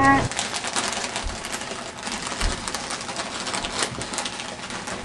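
Foil snack-chip bag crinkling and rustling in the hand: a steady run of quick, dry crackles.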